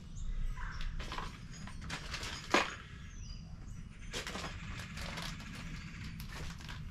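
Light handling noises of shotshell reloading gear on a bench: scattered clicks and rustles, with one sharper click about two and a half seconds in, over a low steady hum.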